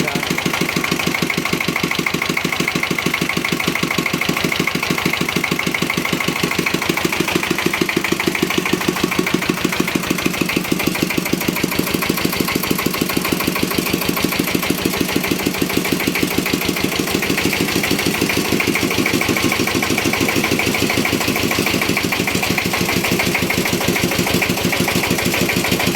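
Second-hand 'dompeng' single-cylinder diesel engine running steadily with a fast, even chugging while a well-drilling rig is test-run; the owner judges it still fine.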